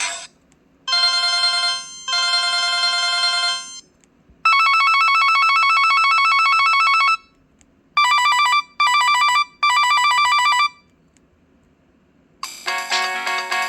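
Preloaded ringtones from a Casio G'Zone Type-V phone's speaker, played one after another: two electronic ring bursts, then a long rapidly pulsing ring tone, then three short pulsing ring bursts. A new melodic ringtone starts near the end.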